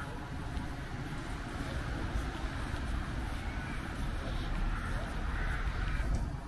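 Street ambience: a steady low rumble of road traffic and a bus engine, growing a little louder near the end, with faint voices.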